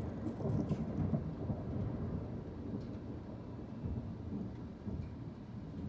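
Thunder rumbling low and rolling, loudest in the first second or so and then slowly dying away.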